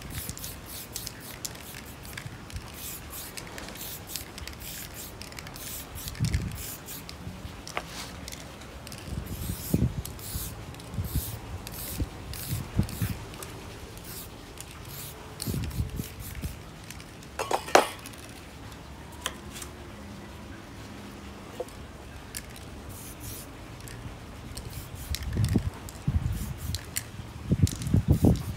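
Short bursts of aerosol spray paint hissing from a spray can, one after another, with low knocks from handling the can and paper and a sharp clink about two-thirds of the way through.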